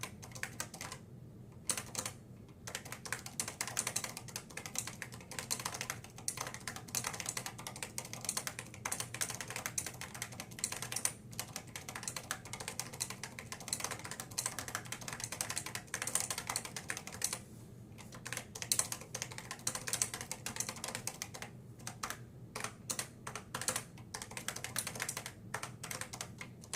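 Typing on a keyboard with first-generation Fujitsu leaf spring linear switches and thick double-shot keycaps: a fast, irregular clatter of keystrokes with a few brief pauses.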